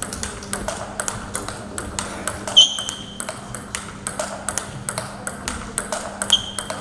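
Table tennis rally: the celluloid ball clicking quickly back and forth off bats and table, about three or four hits a second. Two short, sharp squeaks cut through, the louder about two and a half seconds in and another near the end.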